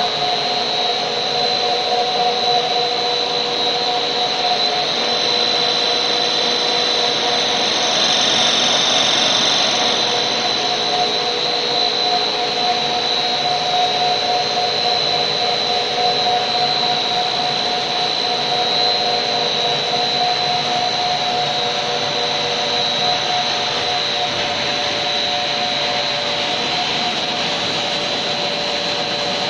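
Steam fish feed extruder line running: a steady, loud machine noise with a constant high whine and a couple of lower hum tones.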